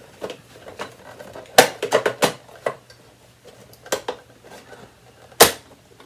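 Hard plastic clicks and knocks from a Bernina 6100 upright vacuum cleaner's bottom plate and brush roll being fitted back and snapped into their pop-release latches: a sharp click about a second and a half in, a quick run of knocks around two seconds, and another sharp snap near the end.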